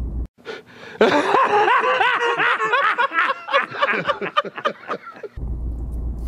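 A man laughing loudly and hard in a quick run of repeated ha-ha's, starting about a second in and lasting about four seconds. A low rumble, like a car's engine heard from the cabin, is heard briefly at the start and returns near the end.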